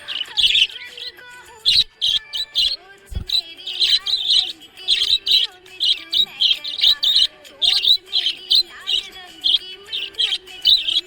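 Budgerigar chirping in quick, repeated short high chirps, several a second, over background music.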